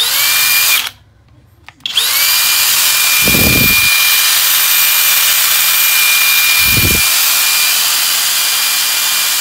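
FLEX 24V brushless drill/driver running free with no load: a short burst that stops, then a second run whose whine climbs quickly to full speed and holds steady for about eight seconds.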